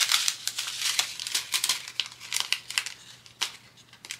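Thin plastic bags crinkling and rustling in the hands with many quick, irregular clicks as diamond-painting drills are poured from their packet into a small storage bag; the crackle thins out near the end.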